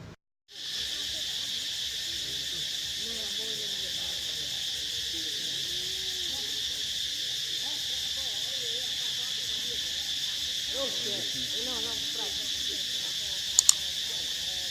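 Dense insect chorus, a steady high-pitched drone that holds without a break, with two sharp clicks near the end.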